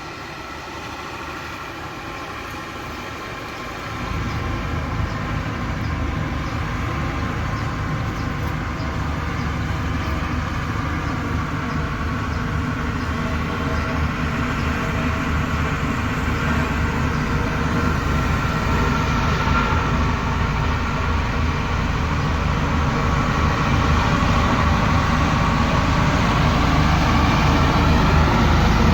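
Diesel engine of a heavy construction machine running steadily, with a deep rumble. It gets louder about four seconds in and keeps growing louder.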